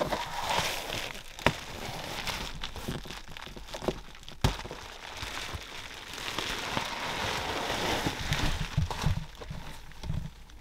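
Crinkling and rustling of material handled close to the microphone, with a few sharp knocks along the way.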